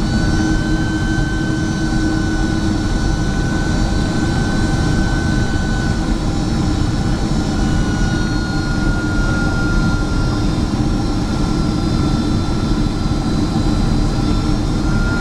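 Boeing 767-400ER jet engines heard from inside the cabin: a steady, loud, deep rush with high whining tones that drift slowly and slightly in pitch.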